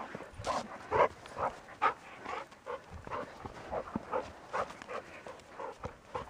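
A dog making short, soft sounds in a steady rhythm, about two or three a second.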